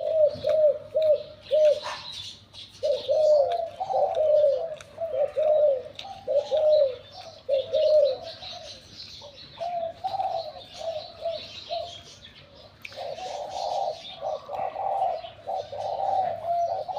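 Spotted doves cooing over and over in short repeated phrases, the three-'kuk' call that Thai dove keepers prize in a decoy bird, with fainter high chirps from small birds above it.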